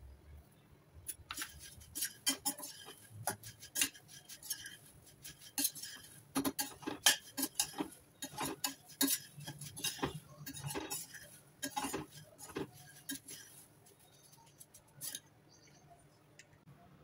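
Perforated steel ladle stirring puffed rice in a stainless steel pan: irregular clinks and scrapes of metal on metal, thinning out in the last few seconds.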